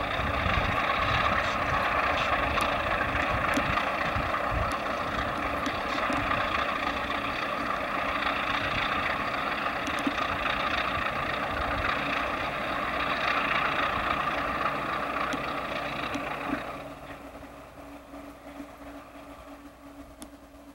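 Baldwin diesel locomotives of the Trona Railway running past with a train of hopper cars, a loud steady engine roar with uneven low rumbling. About three-quarters of the way through, the roar drops away sharply and only a faint sound is left.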